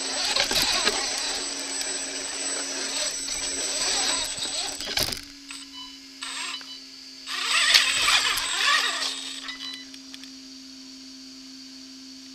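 Brushless 1/8-scale RC rock crawler driving over creek rocks: its electric drivetrain whirs while the tyres and chassis scrape and clatter on stone. A steady hum runs underneath. The driving stops about five seconds in, comes back in a short burst near eight seconds, and then only the hum is left.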